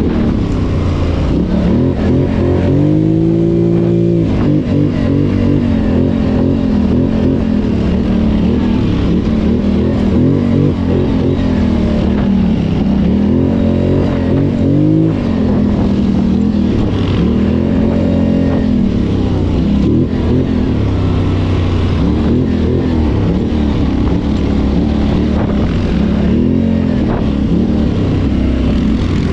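ATV engine running under changing throttle, revving up and easing off several times, with the strongest rises about three, fourteen and eighteen seconds in.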